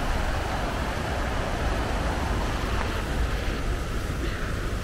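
The Black Water river running high over rocks and boulders, a steady rushing noise.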